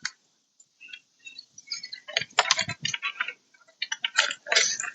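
Irregular small plastic clicks and rattles from hands working door-panel cables and trim clips, in two busy flurries about two and four seconds in.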